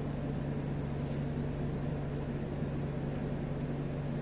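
Steady low hum and hiss of room noise, with a faint, brief squeak of a marker on a whiteboard about a second in.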